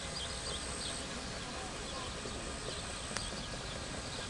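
Outdoor background noise with small birds chirping again and again, a thin high steady whine that comes and goes, and a single sharp click a little after three seconds in.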